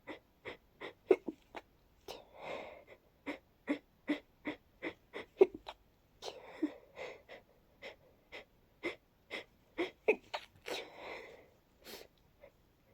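A person with a nose congested from a head cold in a sneezing fit: rapid, wheezy, catching breaths about two or three a second, broken three times by a longer breathy sneeze.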